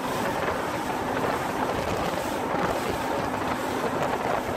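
Boat under way on open water: a steady rush of wind buffeting the microphone and water along the hull, with a faint, even motor hum underneath.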